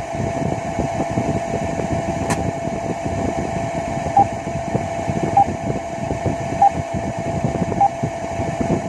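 A steady machinery hum like engine-room background noise runs throughout. From about four seconds in, an alarm sounds as a short electronic beep repeating about every 1.2 seconds, which signals a new alarm for the fresh water pump control failing to go to auto.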